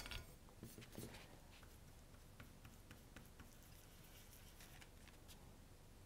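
Near silence: room tone with a few faint light taps of a paintbrush on paper.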